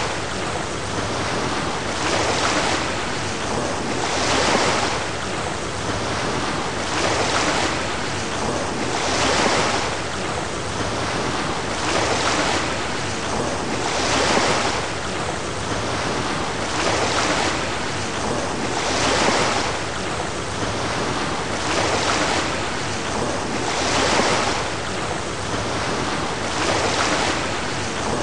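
Ocean waves and wind rushing steadily, swelling in even surges about every two and a half seconds.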